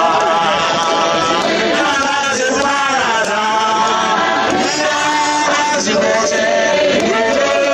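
Apostolic church congregation singing together, many voices chanting a hymn at a steady loudness.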